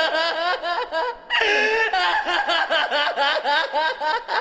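A person laughing in a high voice in rapid, repeated pulses of giggling, with a short break for breath about a second in.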